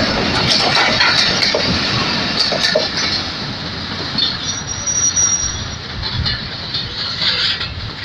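Passenger train coaches rolling past at moderate speed, wheels clicking over the rail joints, with a brief high wheel squeal near the middle.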